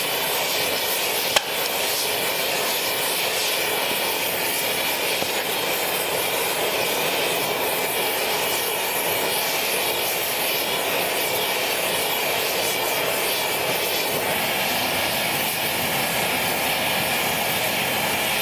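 Gas torch flame hissing steadily as it heats a steel steering arm so it can be bent. There is one sharp click about a second and a half in.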